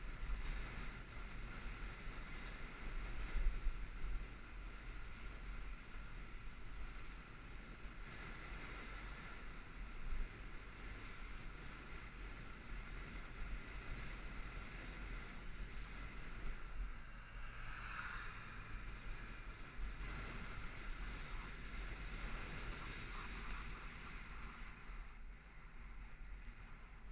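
Wind buffeting the microphone of a camera moving along a road, over a steady rumble of road noise, with a couple of brief louder gusts early on.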